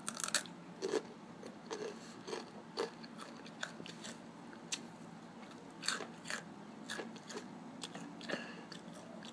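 Takis rolled tortilla chips being bitten and chewed close to the microphone: irregular crisp crunches, loudest near the start and about six seconds in.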